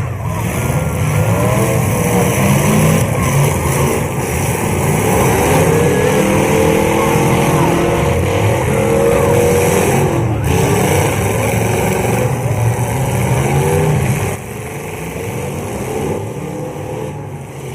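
Several demolition derby cars' engines revving at once, their pitches rising and falling over one another, dropping off noticeably after about fourteen seconds.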